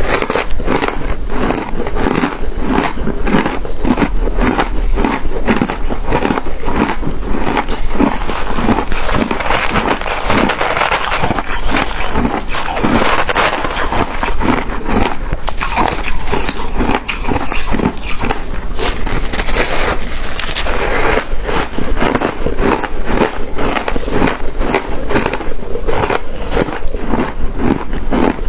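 Close-up chewing of crunchy shaved ice flavoured with matcha: a rapid, unbroken run of loud crunches and crackles as the frozen pieces are bitten and ground between the teeth.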